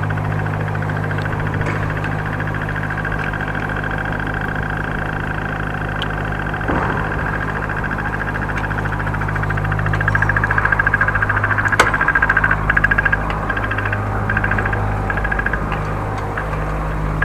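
Road traffic at a city crossing: a steady hum of vehicle engines. It grows louder and flutters for a few seconds past the middle, with a single sharp click in that stretch.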